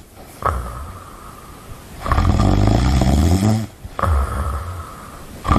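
A person snoring in repeated loud, rough snores: the loudest lasts about a second and a half from about two seconds in, with quieter snoring between and another loud snore starting at the end.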